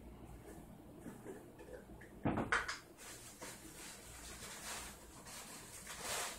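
Kitchen clatter from someone working at a counter: a sharp knock and clatter of utensils or dishes about two seconds in, then softer scraping and rustling, rising again near the end.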